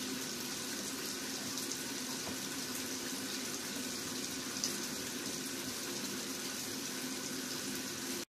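Steady rush of running water in a small bathroom.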